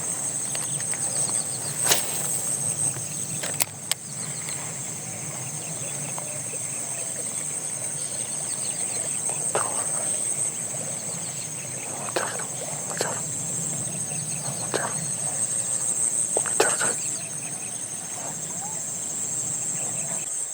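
Steady high-pitched drone of an insect chorus, with a dozen scattered short clicks and knocks.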